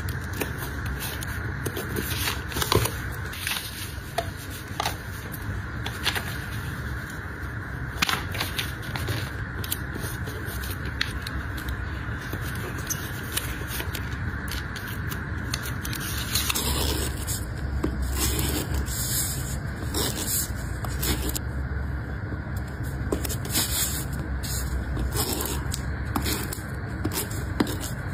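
Close-miked handling of paper and plastic packaging: rustling, crinkling and scraping with many small scattered taps and clicks as printed wrapping paper and cellophane are folded and smoothed.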